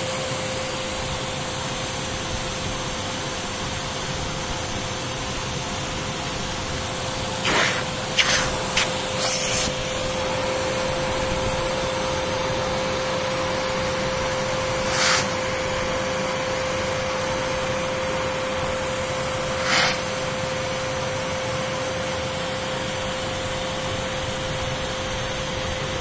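Kärcher SE 6.100 spray extractor's vacuum motor running steadily with a constant tone as its upholstery nozzle is drawn over a fabric sofa. A few brief louder bursts come in a cluster about a third of the way through, then once more a little past halfway and again about three quarters of the way through.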